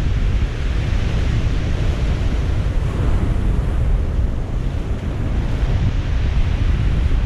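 Ocean surf breaking and washing up a pebble beach, a steady wash of noise, with heavy wind buffeting the microphone.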